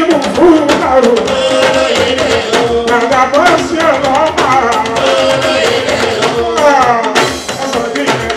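Live Fuji music: a man singing into a microphone over a band of hand drums and percussion, with a steady beat.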